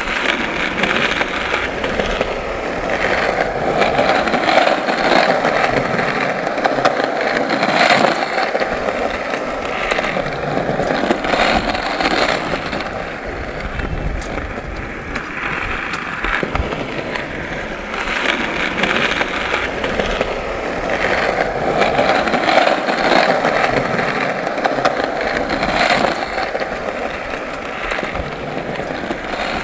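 Skateboard wheels rolling over pavement: a continuous rolling rumble broken by many short clicks and clacks. It swells louder twice, in the first third and again near the end.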